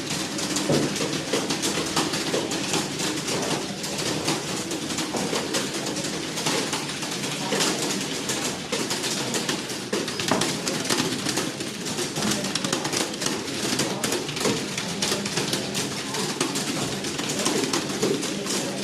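Many computer keyboards being typed on at once during a timed typing test: a dense, continuous clatter of key clicks in a small room.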